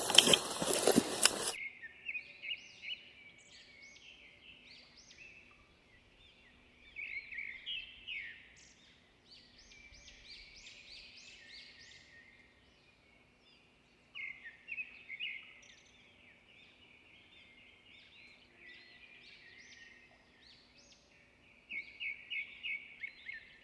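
Wild birds chirping in short runs of quick, high notes, coming and going several times. A loud noise fills the first second and a half and cuts off abruptly.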